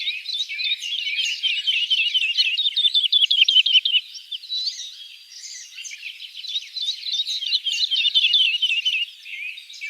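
Woodlark singing: a continuous high-pitched warbling song made of rapid trilled runs of repeated notes and varied phrases, easing briefly about halfway through and again near the end.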